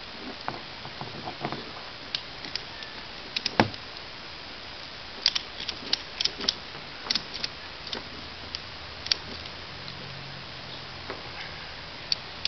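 Metal ratchet tie-down strap buckle clicking and clacking irregularly as the strap is threaded through it and worked by hand, with one sharper knock about three and a half seconds in and a quick run of clicks a few seconds later.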